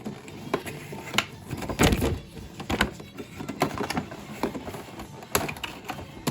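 Irregular scrapes, clicks and knocks of a doll's cardboard-and-plastic packaging box being handled and pried open, with a louder knock about two seconds in and another near the end.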